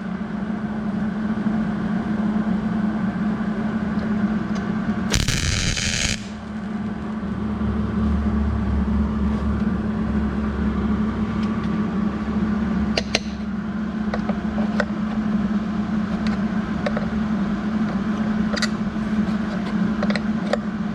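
Steady electrical hum of workshop equipment with scattered sharp metal clicks and taps. A short harsh burst of noise comes about five seconds in.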